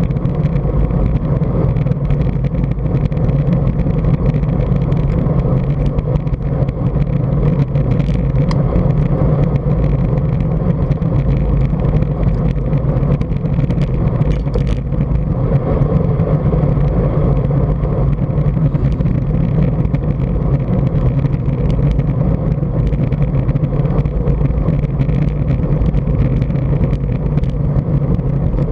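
Steady wind rumble on a bicycle-mounted camera's microphone, mixed with tyre and road noise while riding along at speed, with a few faint brief ticks.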